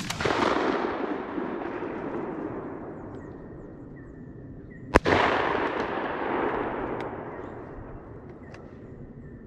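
Two shotgun blasts about five seconds apart, one right at the start and one halfway through. Each is followed by a long rolling echo that fades over two to three seconds.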